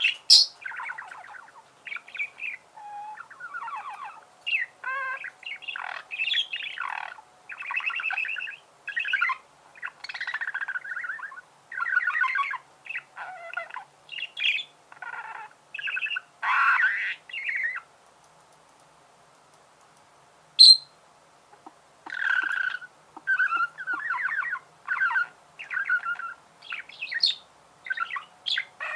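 Budgerigars chattering and warbling in a run of short chirping calls. About two-thirds of the way through, the calls pause for a few seconds, broken by one sharp click, the loudest sound, before the chatter resumes.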